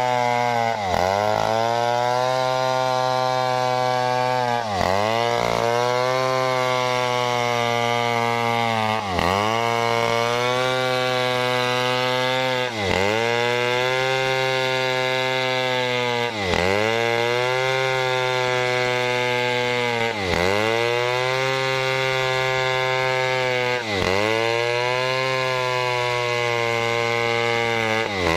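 A Stihl chainsaw rip-cutting a large coconut log lengthwise, running at high revs under load. Its pitch dips sharply and recovers about every four seconds, eight times over.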